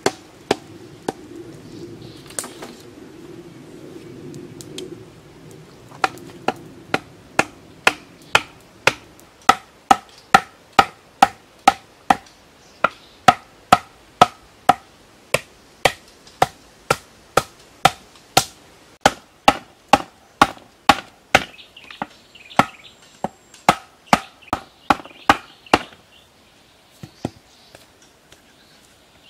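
Hollow green bamboo being struck over and over: sharp knocks about twice a second, each with a short, ringing hollow tone.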